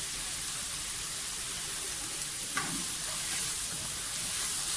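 Shredded cabbage stir-fry sizzling steadily in a pan as it cooks dry, without added water, with one short light knock about two and a half seconds in.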